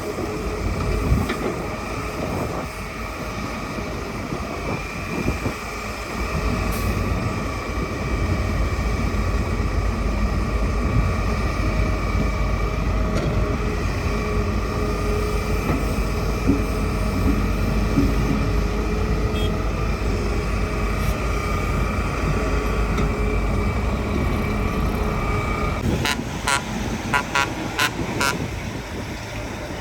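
Hitachi hydraulic excavator working: the engine runs under load with a low rumble and a steady whine, louder from about eight seconds in. Near the end the whine drops away and a quick series of sharp knocks follows.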